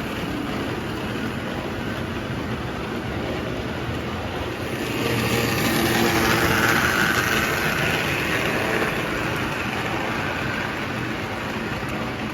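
Postwar Lionel 41 O-gauge toy locomotive running along the track pulling cars: a steady electric-motor hum with wheels rumbling on the rails. It grows louder about five seconds in and eases back after about nine seconds.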